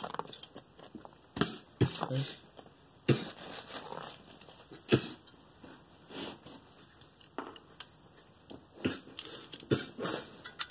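Irregular clicks, taps and rustles from a CPU tower cooler and its wire mounting clip being handled and turned over in the hands.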